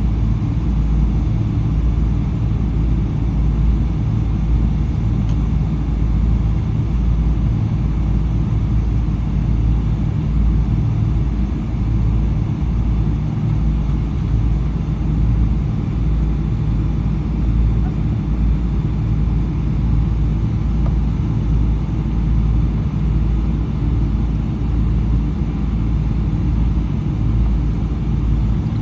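Steady low rumble of a Boeing 777-300 with Rolls-Royce Trent 800 engines, heard from inside the passenger cabin: engine and airflow noise, even throughout.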